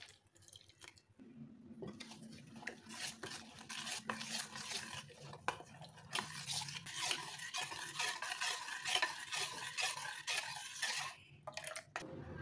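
A metal spoon stirring moong dal flour and coconut milk into a thin batter in a stainless steel bowl, with rapid scraping and clinking against the bowl. It stops near the end.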